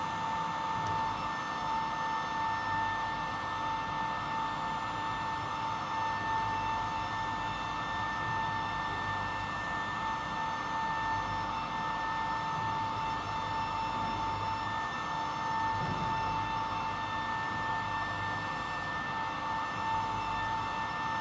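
Steady high-pitched machine whine over a hiss from a powered-up airliner's systems while its elevator is moved.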